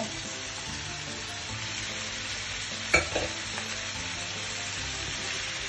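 Diced meat sizzling steadily as it fries in a frying pan, with one sharp knock about three seconds in.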